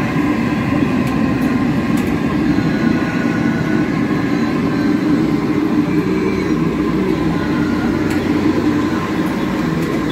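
Steady loud roar of the gas burners under large vats of falafel frying oil, with the oil bubbling, unbroken throughout.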